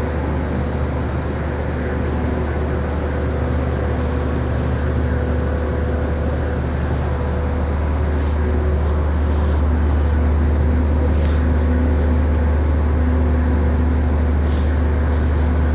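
Inland tanker's engine running under way at low speed, a steady low drone with a faint hum above it that grows a little louder partway through.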